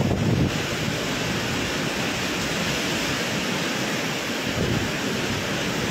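Super typhoon winds and torrential rain: a steady, dense rush of noise with no letup.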